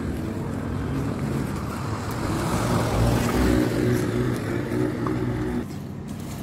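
Car engine and road noise from moving traffic, growing louder toward the middle, then dropping off suddenly near the end.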